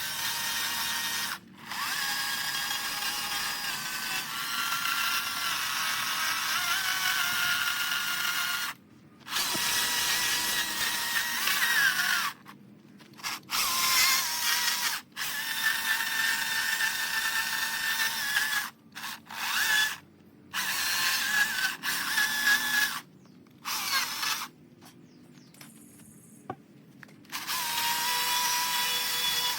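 Handheld power carving tool cutting into eastern red cedar in stop-start bursts: a high whine that drops out and starts again about ten times.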